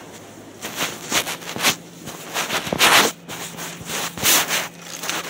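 Coat fabric rubbing and scraping against the phone's microphone as the phone is handled, in a run of uneven rustles, loudest about three seconds in.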